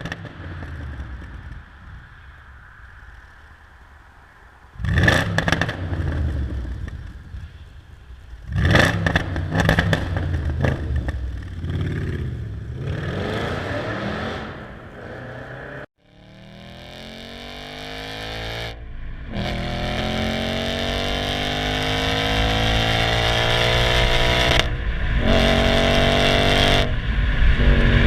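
Audi S5 4.2 V8 through a non-resonated stainless steel catback exhaust, first idling and blipped sharply twice, the revs falling away after each. Then it accelerates hard, the revs climbing steadily with two brief breaks at gear changes.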